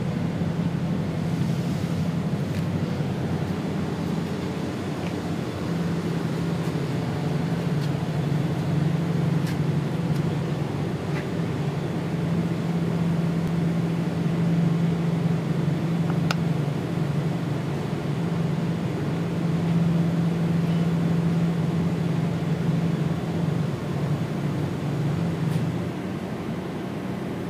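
Face mill on a CNC machining center cutting aluminium: a steady low hum with noise over it, the hum dropping out briefly a few times and the overall level falling near the end.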